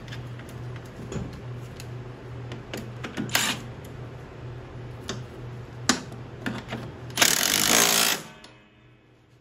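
Scattered metallic clicks and clinks of hand tools, then a power tool runs in one burst of about a second near the end, driving down the nut on a mower deck pulley. A steady low hum sits under it all.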